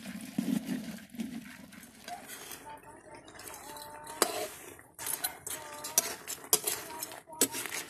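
A metal spatula clinking and scraping against a steel wok while crabs are stirred as they cook. Sharp clinks come irregularly from about two seconds in.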